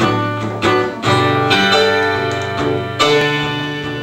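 A live band playing a song's instrumental lead-in: strummed guitar chords with piano, with fresh chords struck about a second in and again near three seconds.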